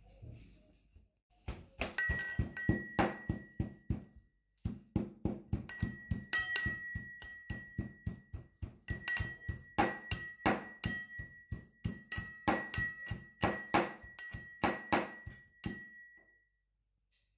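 Stainless steel pestle pounding in a stainless steel mortar, crushing garlic, coriander leaves and green chilli: a steady run of metallic thuds, about two to three a second, with the mortar ringing between strokes. The pounding pauses briefly about four seconds in and stops near the end.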